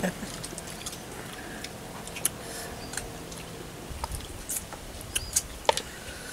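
Quiet eating sounds of people eating fish close to the microphone: scattered soft clicks and lip smacks, with a few sharper ticks in the second half.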